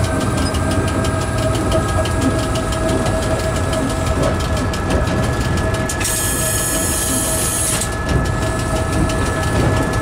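Train running along the track, heard from the driver's cab: a steady rumble with a hum of several held tones. About six seconds in, a high hiss sounds for roughly two seconds.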